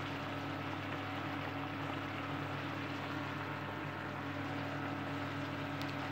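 Chicken, carrots and gem squash simmering in liquid in an electric frying pan: a steady bubbling hiss over a low, even hum.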